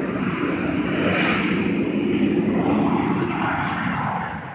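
Aircraft engine noise: a steady rushing that swells slightly and then fades away near the end.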